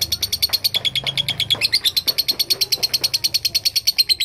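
Lovebird giving a long 'ngekek' song: a rapid, unbroken chatter of high, sharp notes, about a dozen a second, kept up without a pause.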